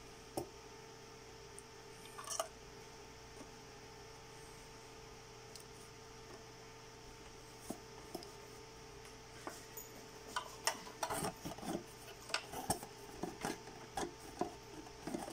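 Hands handling ribbon cables and plastic wire-harness connectors inside an opened ventilator case: short clicks and rubbing, a few at first and then frequent in the second half, over a steady faint hum.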